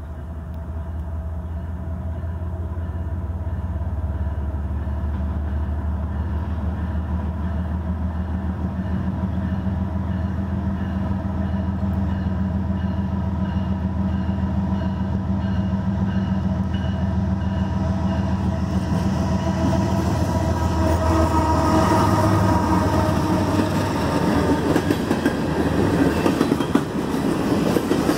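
CN freight train at a level crossing: a steady low diesel-locomotive hum grows louder, then from about twenty seconds in the rush of wheels on rails builds as the freight cars pass. A crossing bell rings throughout in quick, even strokes.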